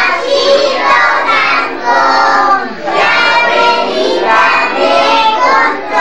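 A group of young children singing a song together in unison, with held notes and short breaks between phrases.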